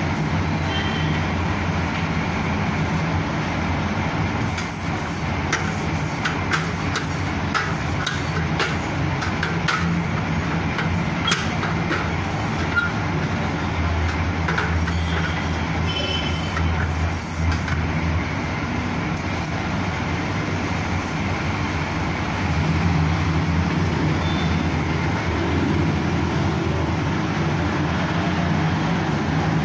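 A steady low rumble, with scattered light clicks and taps in the first half.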